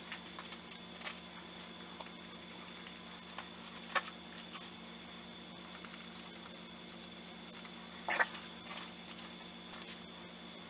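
Aluminium intake manifold being lifted and shifted into place on a Nissan VK45DE V8, giving light scattered clinks and taps of metal on metal, with sharper knocks about a second in, around four seconds and around eight seconds. A steady low hum runs underneath.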